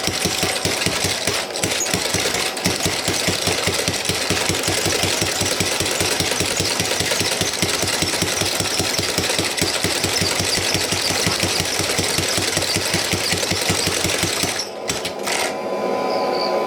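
Power hammer pounding a hot layered Damascus billet in a fast, steady run of blows, drawing out the freshly welded billet. The hammering breaks off near the end.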